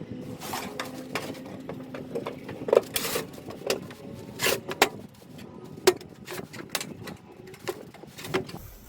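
Thin-gauge sheet-metal air-duct pipe being fitted and snapped together by hand: an irregular run of sharp metallic clicks, pops and crinkles, with a few louder snaps partway through.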